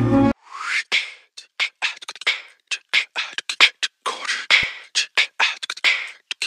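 Beatboxing: short breathy hisses, clicks and snare-like bursts in an uneven rhythm, separated by gaps.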